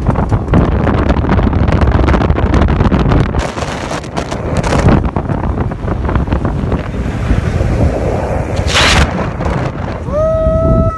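Wind buffeting the microphone over the rumble of a vehicle driving on a sandy dirt track, filmed through an open car window. Near the end a man's voice rises into one long held call.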